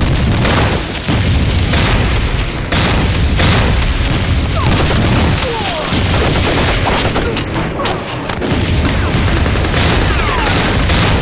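Battle soundtrack of explosions booming one after another, mixed with rifle fire, in a continuous dense din.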